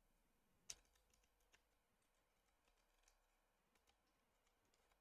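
Near silence broken by a few faint, isolated key clicks from a hand-wired mechanical keyboard being tested key by key. The clearest click comes about a second in, with a few softer ones after it.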